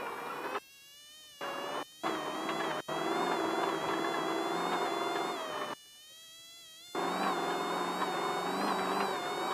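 Off-road race vehicle's engine heard from inside the vehicle as a steady buzzing whine, its pitch wavering slightly with the throttle. It drops away for about a second twice, near the start and just past the middle.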